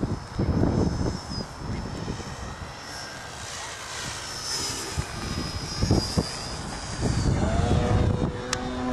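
Engine of a 72-inch Extra 330SC RC aerobatic airplane flying, its high note drifting up and down, with wind gusts buffeting the microphone. Near the end a stronger, lower engine note rises and then holds steady.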